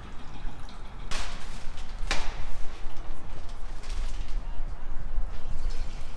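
Waste water pouring and splashing from a portable cassette toilet as it is emptied into a toilet bowl, with two louder sudden splashes about one and two seconds in.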